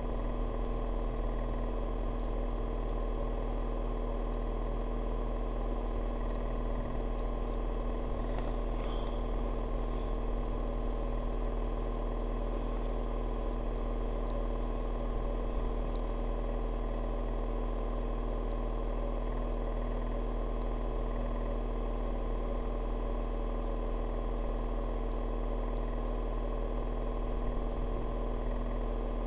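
Steady mechanical hum with several fixed tones, unchanging in pitch and level, like a small engine or motor running.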